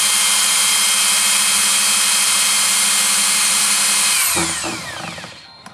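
Small electric drill running at a steady high whine while drilling holes, then released about four seconds in and spinning down with a falling whine.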